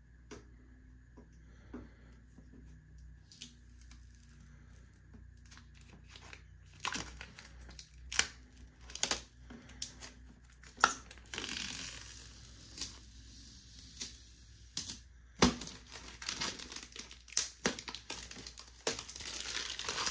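Protective plastic film being peeled off the side panel of a Prusa Core One 3D printer: a crackling, tearing sound with many sharp snaps. It starts with only a few small clicks and builds from about seven seconds in, loudest in two long peels.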